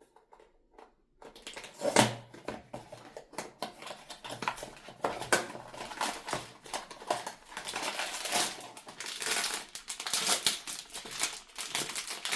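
Blind-box packaging being handled and opened, a dense run of crinkling and rustling with sharp crackles starting about a second in.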